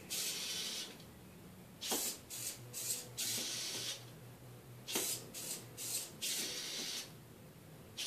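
Small wheeled robot's gear motors whirring in three short bursts, stopping and starting as the robot drives and pauses to pick its way across the floor.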